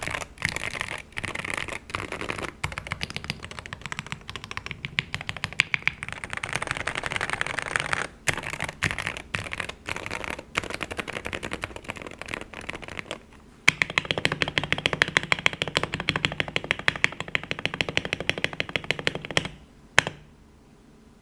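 Fast typing on a Wooting 60HE keyboard with Gateron Lekker linear magnetic switches and PBT keycaps, built into a Tofu 60 Redux case with foam, tape and o-ring mods. Dense runs of keystrokes are broken by short pauses; an even faster run comes about two-thirds of the way in, and it ends with a single last keystroke.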